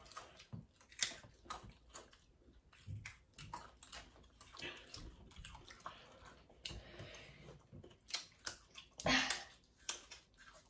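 Close-miked eating sounds: irregular chewing, crunching and mouth smacks on fried chicken tenders, coming as short clicks, with a louder burst about nine seconds in.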